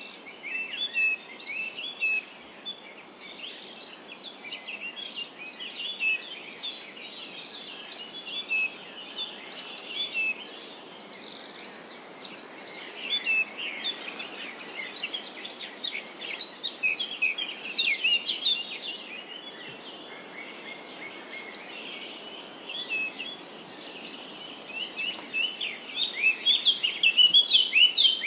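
Birds chirping and twittering in many short, quick calls over a faint steady hiss, the chirping growing busier and louder near the end.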